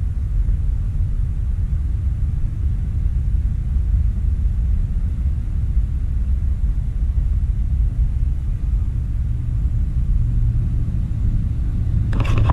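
Wind buffeting the microphone: a steady, low, fluttering rumble. Near the end comes a brief rustle.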